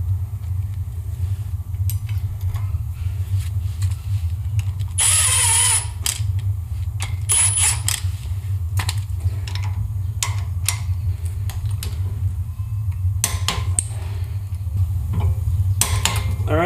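A cordless power ratchet runs bolts into a full-floating axle hub: a loud burst with a high whine about five seconds in and a shorter one near eight seconds, with scattered metallic clicks of socket and ratchet between them. Clicks gather again near the end as the bolts are taken up with a hand torque wrench, all over a steady low hum.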